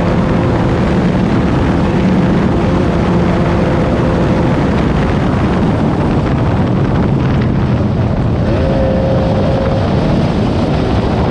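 Class 9 off-road race car's engine running hard under a loud rush of wind noise. Its engine note sinks into the noise midway and comes back a little higher about eight and a half seconds in.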